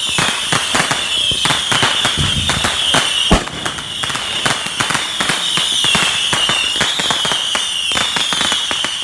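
Fireworks and firecrackers going off in a rapid, dense string of pops and crackles, with one louder bang a little over three seconds in, over a steady high whine.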